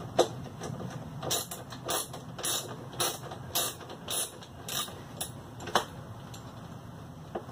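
Socket ratchet wrench ratcheting on a mower bolt in short repeated strokes, about one every half second, as a fastener is worked loose; the strokes stop near the end.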